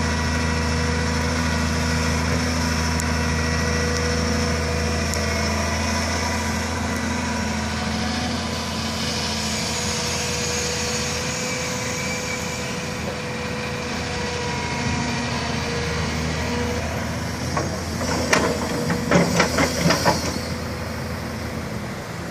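Doosan DX300LC crawler excavator's diesel engine running steadily under work, with a steady whine over the engine note. About three-quarters of the way through comes a quick run of about six knocks from the machine.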